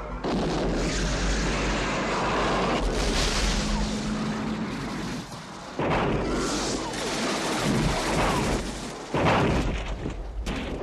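Action-film car-chase sound effects: a run of loud booms and crashing noise with heavy low rumble, easing briefly a little past five seconds and again about nine seconds in.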